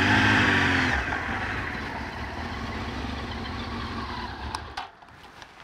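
1997 Honda Fireblade's inline-four engine running as the bike rides in: the note swells and bends in pitch in the first second, then settles lower and quieter and dies away about five seconds in.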